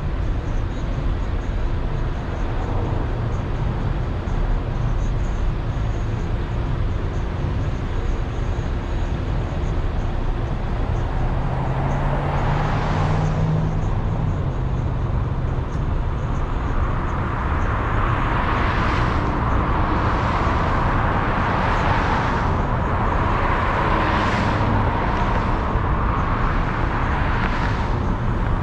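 Car driving on city streets: a steady rumble of road and engine noise. From about twelve seconds in, a run of whooshes comes every second or two over a faint steady whine.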